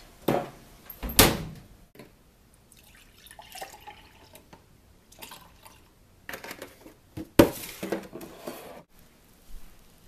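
Kitchen sounds of getting a drink: a cabinet door and glass knocking near the start, then liquid poured from a plastic jug into a glass, with a sharp clunk about seven seconds in as something is set down on the counter.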